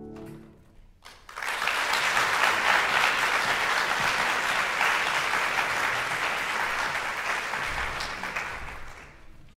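The last held chord of a men's choir dies away, then an audience applauds, starting about a second in and cutting off suddenly near the end.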